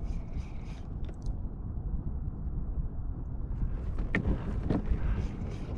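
Wind buffeting the camera microphone in a steady low rumble, with water lapping against a kayak hull and a couple of small knocks about four seconds in.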